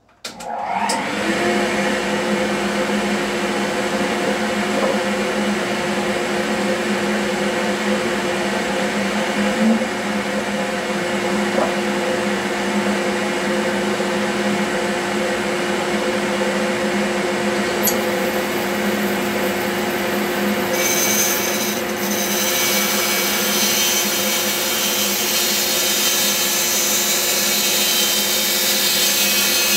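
Bandsaw switched on and coming up to speed within the first second, then running steadily with an even hum. About two-thirds of the way through, the blade starts cutting into a thick wooden block, adding a higher noise on top of the motor.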